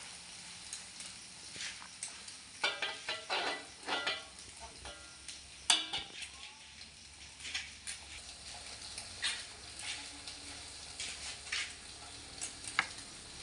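Egg and tempoyak mixture frying in an aluminium wok: a steady sizzle, with scattered clicks and scrapes of a metal spatula against the wok. The sharpest click comes about halfway through.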